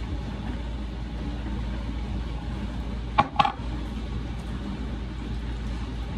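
Dishwasher running with a steady low rumble and wash noise, with two quick clinks about three seconds in.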